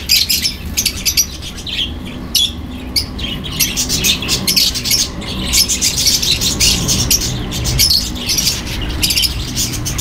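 A flock of lovebirds chattering, with rapid high-pitched chirps and squawks one after another.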